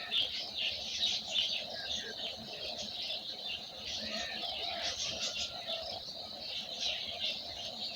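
A chorus of many small birds chirping and twittering at once, with quick high chirps overlapping without a break.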